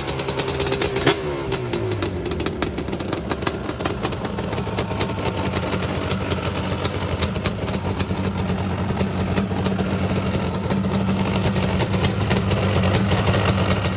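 Freshly rebuilt Yamaha Banshee 350 twin-cylinder two-stroke engine running just after start-up: a short blip about a second in falls back, then it settles to a steady idle, running well after new bores, pistons and crank.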